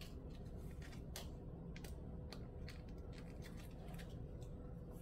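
Faint, irregular clicks and crackles of a bath bomb mold packed with crumbly citrus bath bomb mixture being squeezed and handled by small hands, over a low steady room hum.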